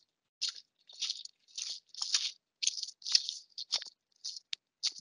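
Footsteps crunching on the forest floor, about two steps a second, each one cut off to dead silence before the next.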